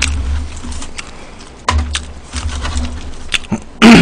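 Close-miked eating sounds: chewing of fried chicken with scattered crunches and mouth clicks over a low rumble. Near the end comes a short, very loud grunt or hum from the eater's voice.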